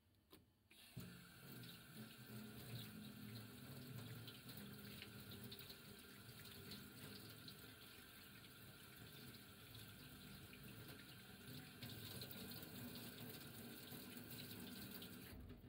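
Kitchen tap running faintly into a stainless steel sink, the stream splashing over hands and a hot potato being peeled under it. It starts about a second in and stops just before the end.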